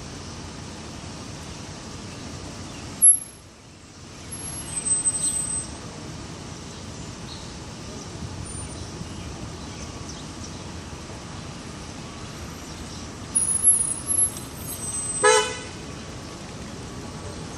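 Steady city road traffic noise, with a sharp click about three seconds in and a short car horn toot near the end.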